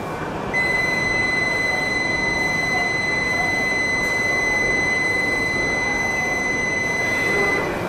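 Shinkansen platform departure buzzer sounding one steady, high electronic tone for about seven seconds, starting just after the beginning and cutting off suddenly near the end. It warns that the train's doors are about to close for departure. A station hubbub runs underneath.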